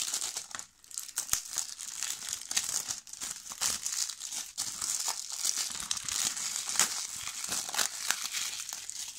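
Clear plastic shrink wrap crinkling and crackling as it is torn and peeled off a Blu-ray case by hand and bunched up, with a brief pause about a second in.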